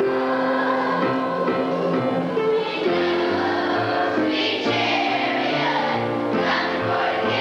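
Children's choir singing a song together, with instrumental accompaniment holding low notes underneath.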